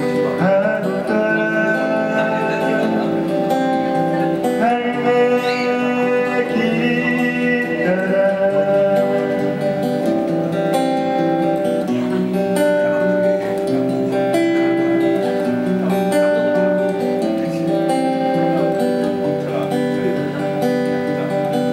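Live acoustic guitar playing an instrumental passage of a slow song, the singer's voice trailing off about a second in, with held accompanying notes underneath.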